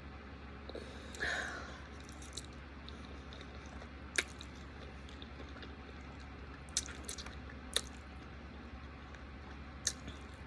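Quiet wet chewing and mouth sounds of a person eating creamy chicken Alfredo, with a brief louder sound about a second in and a few sharp clicks scattered through.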